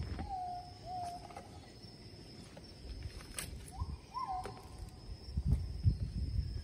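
A bird calling: short clear whistled notes that start high and drop to a lower held pitch. There are a few in the first second and two more about four seconds in, over a steady faint high tone. Low thumps and rumble near the end are the loudest sound.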